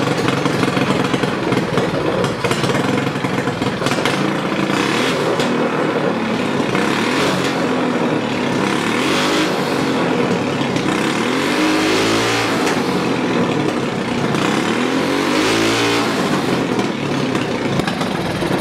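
Predator 212 single-cylinder engine with a Mikuni carburetor running, fitted with a 27.5 jet and a drilled-out main jet. It runs steadily and is revved up and down a few times, the pitch rising and falling, mostly in the second half.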